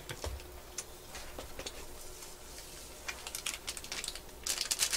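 Quiet scattered clicks and crackles of eating at the table, with food being bitten and a sauce pouch handled. The clicks thicken into a quick run of crackles near the end.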